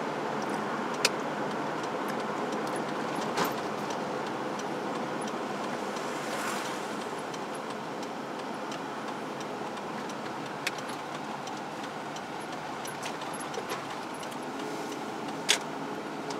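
Steady road and engine noise inside a moving car's cabin, with a few sharp clicks or rattles now and then.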